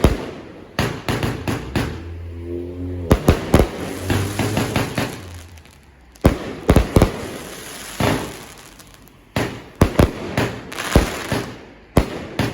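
Fireworks going off in a rapid barrage: sharp bangs in quick clusters of several at a time, over and over, with crackle between them.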